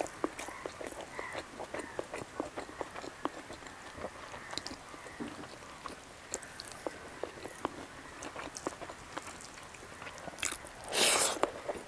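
Close-miked chewing and biting of a hand-held omelette and rice, with many small wet mouth clicks and smacks. Near the end comes one short, louder burst of noise.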